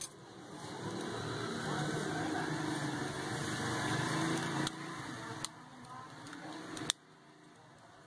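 Hands fitting a phone's plastic back frame onto the handset, with a few sharp plastic clicks in the second half over a steady background murmur.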